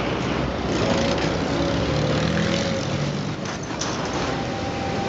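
Road traffic close by: cars and a minibus driving past, engines running and tyres on the road, as a steady noise with a low hum. A thin steady whine comes in about four seconds in.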